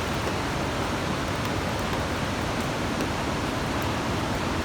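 Steady rushing of the Coquihalla River's fast water, an even, unbroken noise.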